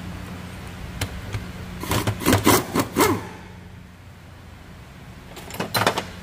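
Short rasping, scraping strokes of hand work on parts during a loader hydraulic-valve teardown: a click about a second in, a quick run of strokes a second later, and a few more near the end. A steady low hum runs behind, dropping away after the first run of strokes.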